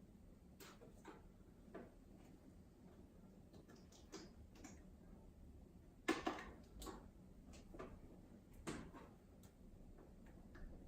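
Quiet hand-work on an opened iMac, disconnecting the LCD panel's cables and lifting the panel: scattered faint clicks and taps, with a louder clatter about six seconds in and another knock near nine seconds.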